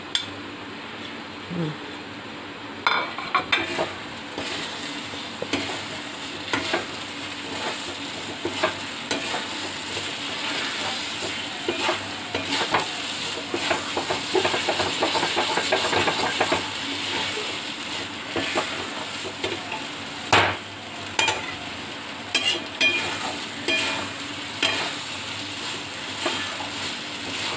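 A metal spatula stirring and scraping thick semolina halwa in ghee in a metal kadai, with a steady faint sizzle and irregular clicks and scrapes of the spatula against the pan. The scraping starts about three seconds in. The halwa has thickened into a stiff mass that is nearly done.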